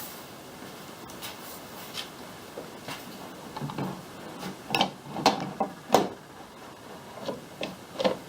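Scattered light clicks and knocks of hands handling the kayak's rudder cable and fittings, with a few louder knocks about five to six seconds in.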